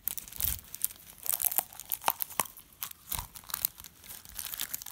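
Clear plastic shrink wrap crinkling and tearing as it is peeled off a plastic toy capsule egg, with irregular sharp crackles and clicks from the wrap and the hard plastic shell as the egg is opened.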